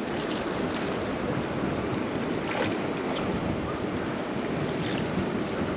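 Steady rush of river water mixed with wind on the microphone, with a few faint clicks.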